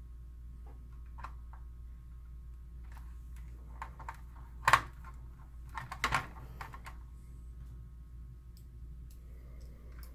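Scattered clicks and taps of a screwdriver, a screw and plastic parts as a projector's lamp fan is screwed back into the chassis. The sharpest click comes about halfway through, followed by a cluster of clicks about a second later, over a steady low hum.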